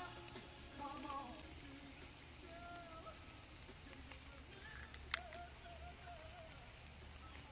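Chicken, steak and bratwurst sizzling over hot charcoal on a grill: a steady hiss, with one sharp click about five seconds in.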